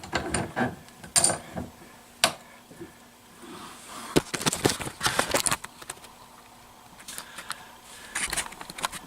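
Scattered metallic clicks, clinks and light knocks of outboard-motor parts and hand tools being handled and set up in a bench vise, coming in short clusters with quiet gaps between.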